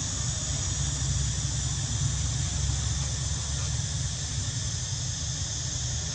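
Steady outdoor background noise: a low rumble with an even high-pitched hiss, and no distinct events.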